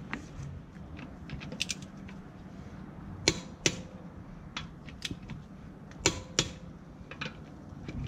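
Socket wrench on a Volkswagen Passat's wheel lug bolts: sharp metallic clicks with a short ring, in two pairs about a third of a second apart, a few seconds in and again about six seconds in, with fainter ticks in between.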